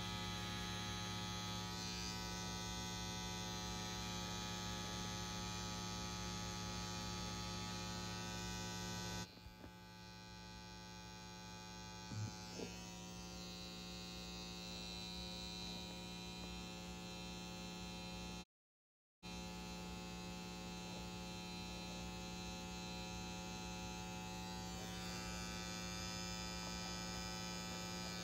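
Tattoo machine running with a steady electric hum. The hum drops in level about nine seconds in and cuts out for a moment just past the middle.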